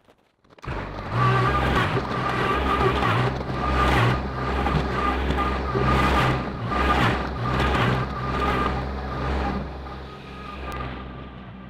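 Kubota compact tractor's diesel engine starting up loud about half a second in and running under load, swelling and easing in loudness as the front loader pushes dirt to backfill the trench.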